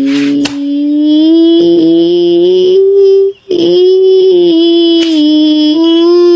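A high voice singing long held notes, nearly level in pitch, broken by a short gap about three and a half seconds in, with a few sharp clicks.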